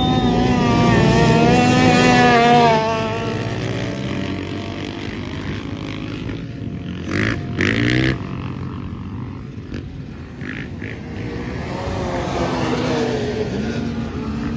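Engines of racing snowmobiles and a dirt bike passing on the ice. A high engine note rises and falls and is loudest over the first three seconds. About seven to eight seconds in, the dirt bike passes with two short, loud bursts of throttle. Another engine note swells again near the end.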